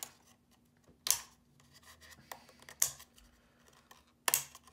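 Hard plastic clicks and scraping as a snap-out panel is worked loose from the body of a VISUO XS809W toy quadcopter. There are three sharp clicks about a second and a half apart, with light scratching and rubbing between them.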